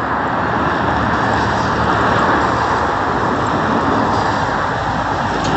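Steady road traffic noise: a continuous even rush of vehicles on a busy road, with no single vehicle standing out.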